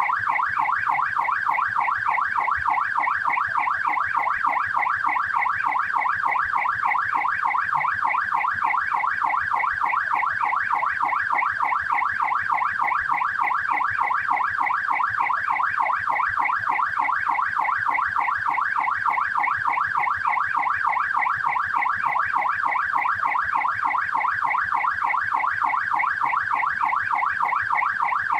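Australian police car siren on its yelp setting: a fast, even up-and-down wail repeating several times a second, steady throughout.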